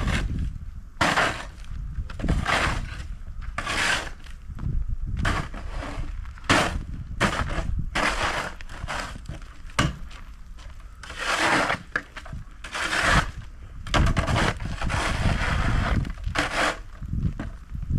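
Snow shovel scraping and crunching through snow in repeated, irregular strokes, some short and some drawn out.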